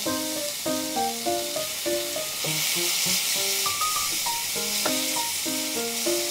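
Marinated pork shoulder, onion and green onion sizzling in a frying pan over high heat; the sizzle grows stronger about halfway through. Light background music of short keyboard notes plays alongside.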